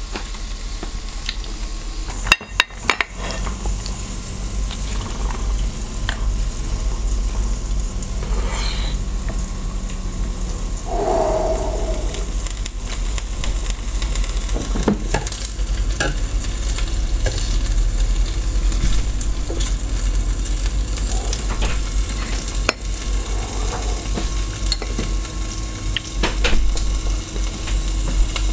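Strips of meat sizzling steadily on a round grill pan over a portable gas stove, with scattered clicks of chopsticks and dishes and a few sharp clacks about two and a half seconds in.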